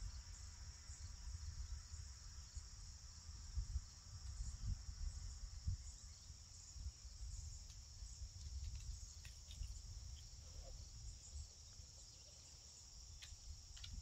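Steady chorus of insects, a constant high-pitched drone, over a low rumble, with a few faint clicks in the second half.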